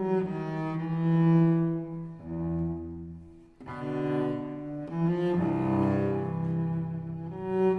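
Background music: slow, low bowed-string music with long held notes, dipping briefly in the middle.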